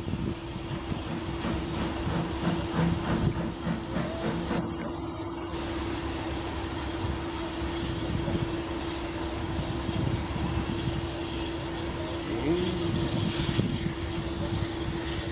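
Small steam tank locomotive working slowly: soft irregular exhaust chuffs, the hiss of steam and a steady low tone underneath.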